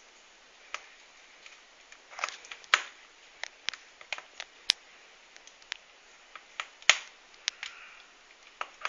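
Wood fire crackling in a fireplace: irregular sharp pops and snaps over a faint hiss, the loudest about three seconds in and again near seven seconds.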